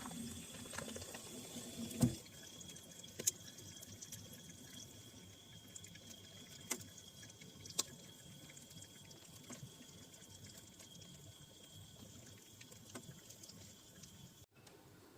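Faint, scattered drips and ticks of frost and ice melting inside an open, switched-off deep freezer, over a faint steady high whine.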